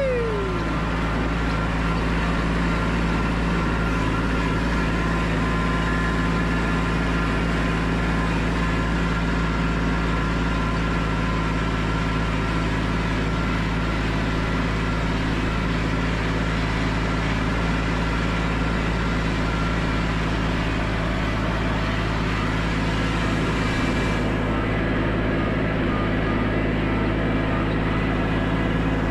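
Kubota compact tractor's diesel engine running at a steady speed, a constant drone.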